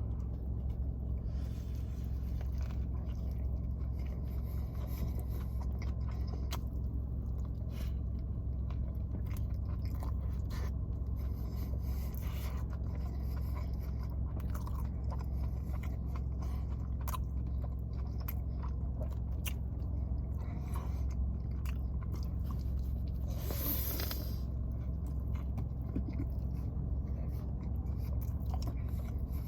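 Close-miked biting and chewing of a McDonald's Chicken Big Mac, with small crunches and mouth sounds over a steady low hum. One louder crunchy burst comes about three-quarters of the way through.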